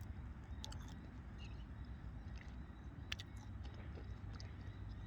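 Someone chewing a toffee-coated strawberry, with a few short crunches of the hard toffee, the sharpest about three seconds in, over a low steady rumble.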